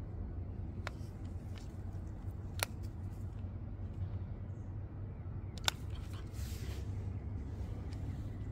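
Outdoor background rumble with no speech, broken by three sharp clicks spread across the first six seconds and a brief rustle about six and a half seconds in.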